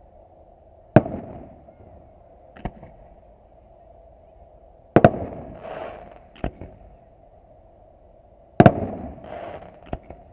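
Aerial fireworks shells going off in a string of sharp bangs with echoes trailing after them. The loudest come about a second in, about five seconds in and about eight and a half seconds in, with smaller pops between. A hissing crackle follows the two biggest bursts.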